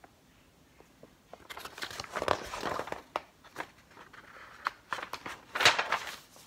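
Picture book being handled and its pages turned: papery rustling with sharp crackles and taps, starting about a second in and loudest near the end.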